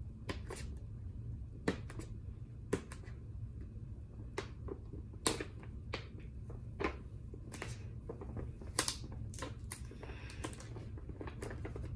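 A paper gift bag being picked and pulled open by hand: irregular sharp crackles and rustles of paper.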